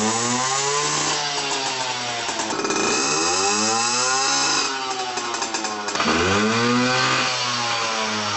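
Yamaha PW50's small two-stroke single-cylinder engine revved up and let back down about three times through its exhaust pipe, with a buzzy, rising and falling pitch.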